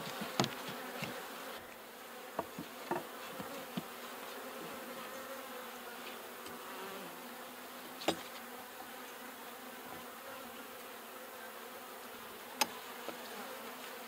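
Honeybees buzzing steadily in a steady hum around an opened hive. A few sharp clicks of a metal hive tool against the wooden frames cut through it, the loudest about eight seconds in and again near the end.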